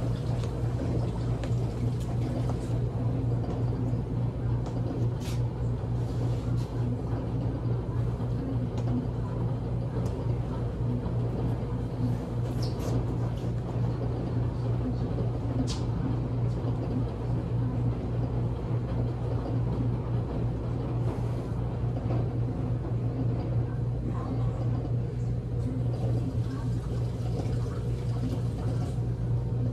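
Steady low hum of commercial laundromat machines running, with a few faint ticks.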